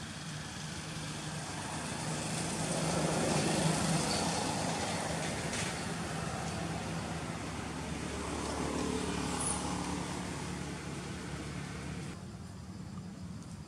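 Motor vehicle traffic: engine noise with a low drone that swells to a peak about four seconds in, rises again around nine seconds, then drops away abruptly near the end.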